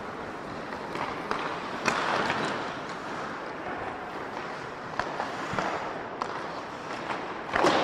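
Ice hockey game play: skate blades scraping the ice, with scattered clacks of sticks and puck and a louder knock near the end.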